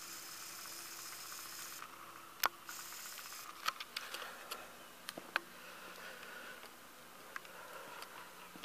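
Quiet interior room tone with a faint hiss, broken by a few sharp clicks from handling a handheld camera as it pans.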